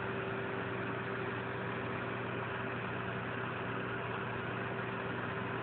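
Steady background hum and hiss with a faint constant tone, unchanging throughout: room noise with no cat or voice.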